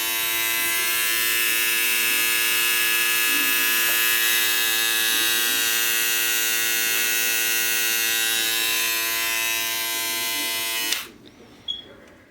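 Caliber electric barber clipper running with a steady, even buzz, then switched off, cutting out suddenly near the end.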